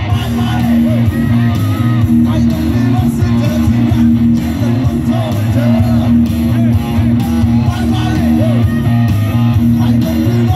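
Live rock band music played loud through a concert PA: electric guitar over a heavy steady bass, with some singing.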